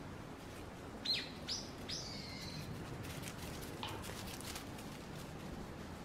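Wild bird calling: three quick high chirps that rise and fall, about a second in, the last held briefly, then a single call that slides down in pitch near the four-second mark. A few faint clicks follow it.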